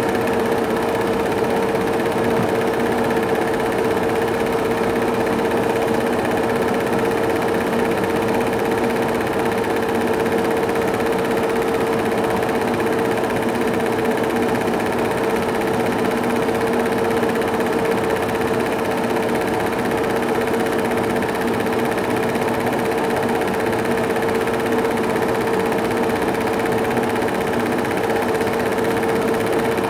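Cine film projector running steadily: an unbroken mechanical whirr with a constant hum tone, no change in speed or level.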